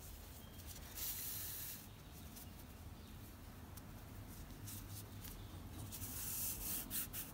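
White yarn being drawn through a red crocheted piece with a metal yarn needle, embroidering spots: soft rustling swishes, one about a second in and another run near the end, with light scratchy ticks between.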